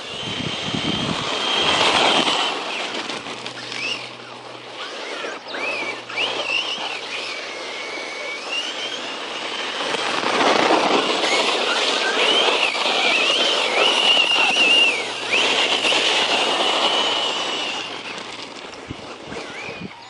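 Circuit Thrash 1/10-scale RC truck's brushless electric motor whining, its pitch rising and falling with the throttle over a rushing noise. Loudest about two seconds in and again from about ten to fifteen seconds in.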